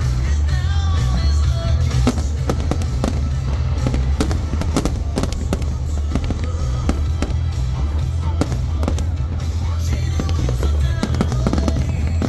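Fireworks going off in a dense barrage: many sharp bangs and crackles over a continuous low rumble, with music playing along.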